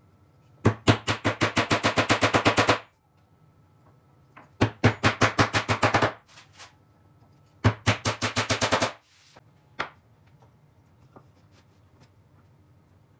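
Hammer tapping ball bearings down into drilled holes in pine blocks: three quick runs of rapid blows, about eight or nine a second, then one lone knock.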